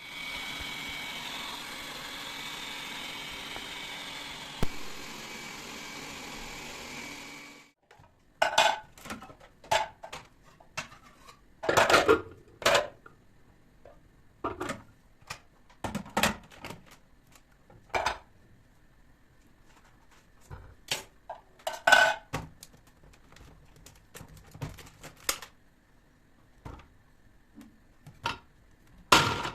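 A small kitchen appliance motor runs steadily for about eight seconds, then cuts off. After that come scattered clinks and knocks of dishes, pots and utensils being handled, a few of them loud and ringing.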